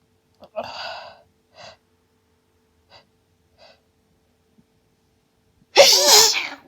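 A woman's hay-fever sneezing fit: a sharp gasping breath in about half a second in, a few short sniffs, then a loud voiced sneeze near the end.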